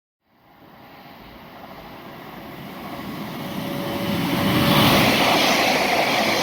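Northern Class 331 electric multiple unit approaching, its wheel-on-rail and running noise growing steadily louder over about five seconds, with a faint steady whine partway through.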